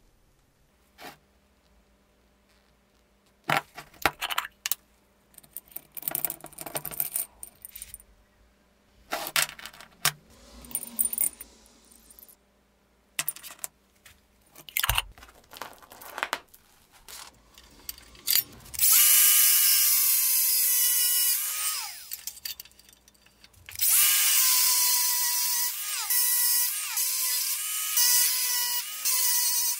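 Scattered clicks, taps and scrapes of small metal parts being handled, then a power tool starts about two thirds of the way through with a loud, steady high whine, stops briefly and starts up again.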